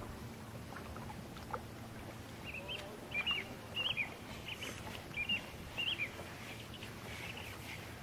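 A bird chirping: a quick run of about ten short, high chirps, starting a couple of seconds in and stopping about six seconds in, over steady low background noise.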